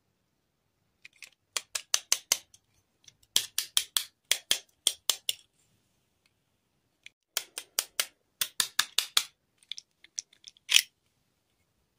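Small plastic doll and its rubbery clip-on dress handled between the fingers: runs of sharp plastic clicks and taps, a few a second, in two spells, with one louder snap near the end.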